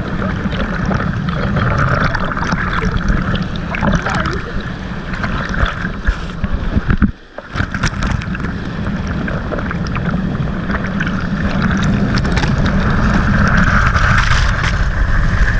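Water rushing and splashing over the rounded blocks of a small weir, heard from right inside the cascade with water hitting the camera. A loud, steady rush that drops away for a moment about halfway through and grows louder near the end.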